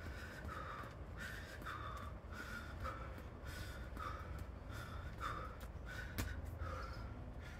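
A person breathing hard during a workout: quick, rhythmic inhales and exhales, about two a second. There is one sharp click about six seconds in.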